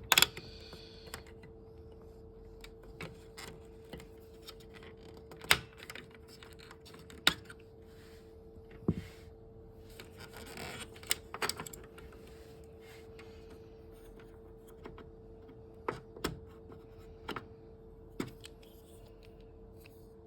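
Irregular plastic clicks and knocks of a Konica Minolta bizhub C3350i's paper feed parts being handled while the feed roller tyre is replaced, with a short rustle partway through and a steady hum underneath.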